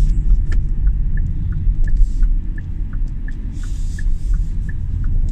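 Road and tyre rumble inside the cabin of a Hyundai Kona Electric rolling on a wet road, with no engine sound, and the turn-signal indicator ticking in an alternating tick-tock at about three ticks a second.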